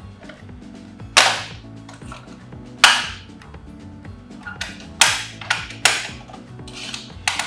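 A series of sharp, hard clacks or bangs at irregular intervals, each dying away quickly, over faint background tones.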